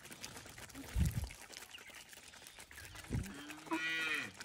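Chickens pecking at scattered grain on concrete, with faint scattered ticks and a couple of dull low thumps. Near the end one hen gives a single drawn-out call of about half a second, the loudest sound.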